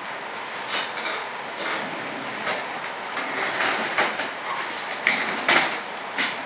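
A string of irregular knocks, taps and scrapes as a paper cup and tools are handled on a workbench, over a steady background hiss.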